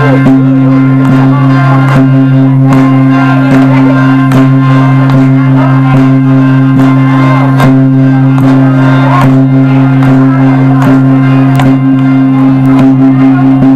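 Loud folk music with a continuous low drone and a regular percussive beat, with wavering voices over it.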